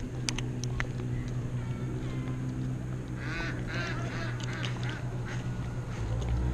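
A quick run of honking waterfowl calls about three to four seconds in, over a steady low engine hum, with a few sharp clicks near the start.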